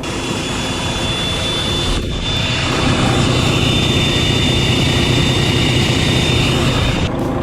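2019 Volvo VNL760 semi truck's diesel engine running just after its first start in two years, growing louder about three seconds in. A high, steady whine rides over the engine and cuts off abruptly near the end.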